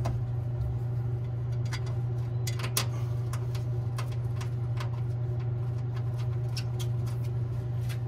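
Scattered light metallic clicks and taps of screws and a tool being handled while the new inducer draft motor assembly is fastened in place, over a steady low machinery hum.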